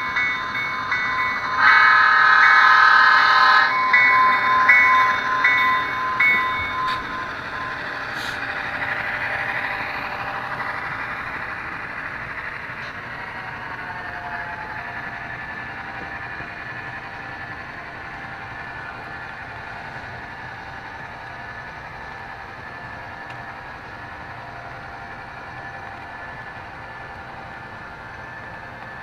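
Model Great Northern F7 diesel locomotive's onboard sound-system horn blowing: short toots, one long loud blast, then several short ones. After that comes the steady running noise of the passenger train going by, slowly fading.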